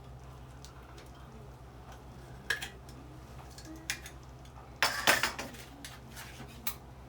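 Metal kitchenware being handled: a few sharp clinks, then a louder clatter about five seconds in, over a low steady hum.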